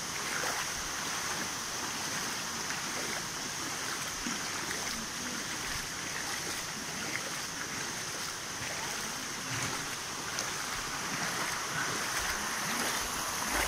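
Steady sloshing and rushing of muddy floodwater as people wade through it.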